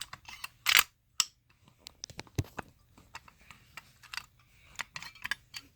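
Irregular clicks and knocks from a Silent Knight SD500-PSDA addressable fire alarm pull station being handled, the loudest a little under a second in.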